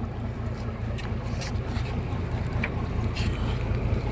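A steady low engine drone, with faint scattered clicks over it.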